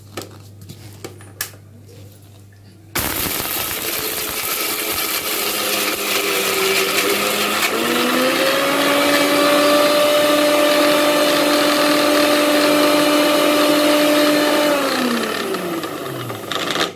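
Electric Indian mixer-grinder (mixie) with a small stainless-steel jar dry-grinding whole spices and dried red chillies into powder. After a few light clicks as the jar and lid are set, the motor starts suddenly about three seconds in, its pitch steps up about eight seconds in, runs steadily, then falls as the motor winds down and stops near the end.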